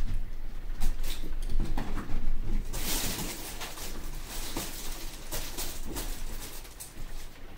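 Crinkly fabric cat tunnel rustling and crackling as cats scramble in and around it, with soft thuds of paws on carpet. The crackling is densest for about a second near the middle.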